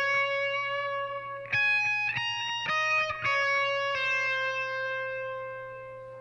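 Electric guitar played through a Marshall MG30CFX 30-watt solid-state amp with a 10-inch speaker, on an overdrive channel with delay: a short phrase of picked notes, then a last note left ringing and slowly fading out.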